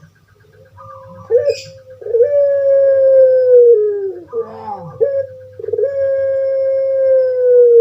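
Puter pelung (ringneck dove, Streptopelia risoria) cooing: a short note followed by a long, drawn-out coo that falls slowly in pitch, heard twice.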